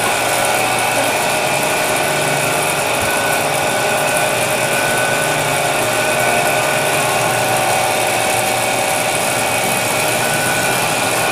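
Belt-driven dough roller (dough sheeter) running steadily as dough is fed through its rollers: a constant motor hum with several steady tones.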